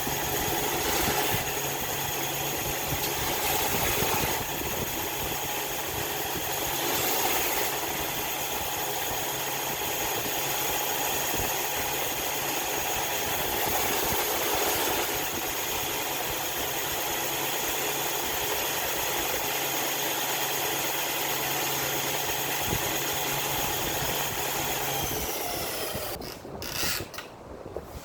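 Electric woodworking power tool running steadily with a constant motor whine, then switched off about 25 seconds in, its pitch falling as it spins down. A few sharp knocks follow near the end.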